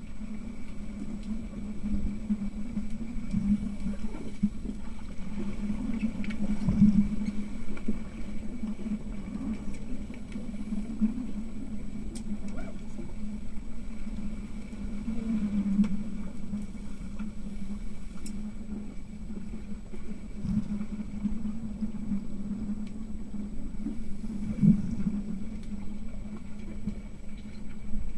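Muffled underwater pool sound picked up by a submerged camera: a steady low hum with dull knocks a few times, and water and bubble noise as players move and breathe out around it.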